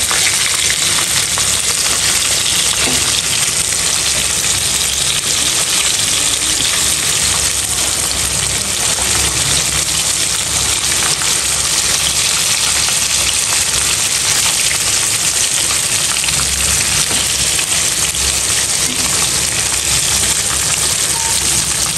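Egg-and-flour-coated chicken tenders frying in hot oil: a steady, dense sizzle with faint scattered crackles.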